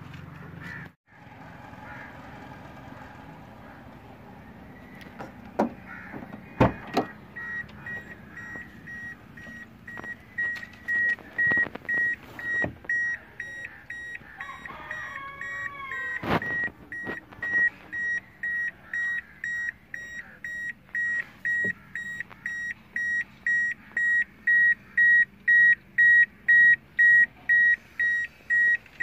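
Two sharp knocks a few seconds in, then an electronic beeper repeating steadily, about two high-pitched beeps a second, growing louder.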